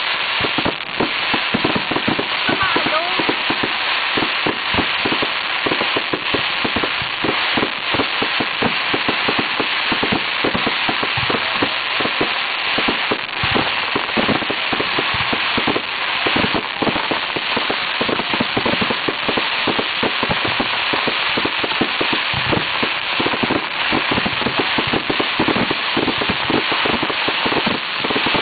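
Fireworks crackling: a dense, continuous mass of rapid crackles and pops that keeps up without a break.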